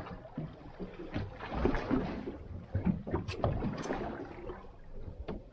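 Water slapping and sloshing against a small boat's hull, with irregular knocks and two sharp clicks about three and a half seconds in.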